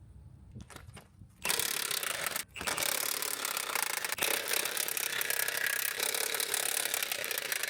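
Power wrench running in two bursts, a short one and then one of about five seconds, with a fast, dense rattle as it spins a bolt off.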